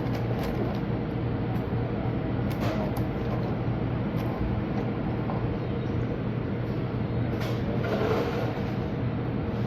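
Steady low mechanical hum with a few brief rustles and clicks, the brightest one near the end.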